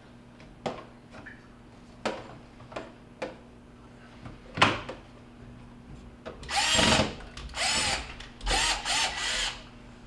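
Cordless drill-driver driving screws to refasten a refrigerator's drain trap, in three short whirring runs in the second half. Before them come a few clicks and knocks as the drain assembly is held and fitted against the cabinet.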